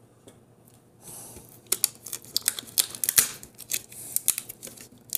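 Plastic shrink wrap crinkling and crackling on a metal trading-card tin as the tin is handled and turned over, with many small clicks and a sharp click near the end.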